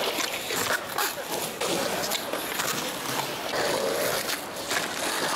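Skateboard wheels rolling over rough concrete, with a few sharp clacks of the board striking the ground.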